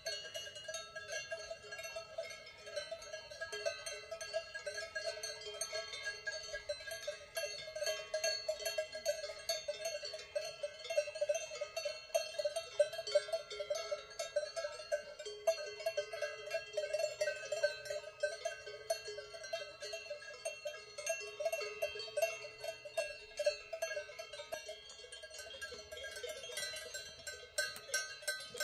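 Many Swiss cowbells on grazing cattle, clanking without a break. Overlapping bell tones at several pitches jangle irregularly as the animals move.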